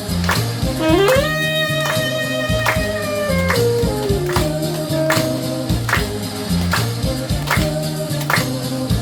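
Saxophone playing a slow melody over a recorded backing track with a steady beat; about a second in it scoops up into a long held note that bends down near the four-second mark.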